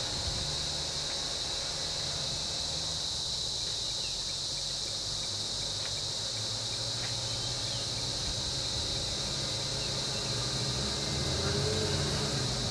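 Steady, unbroken high-pitched insect chorus in the surrounding scrub, with a low vehicle engine idling underneath.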